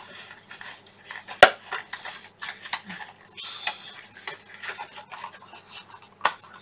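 A small cardboard Raspberry Pi 4 box being opened by hand: scraping and tapping of the cardboard flaps. There is a sharp click about a second and a half in and another near the end.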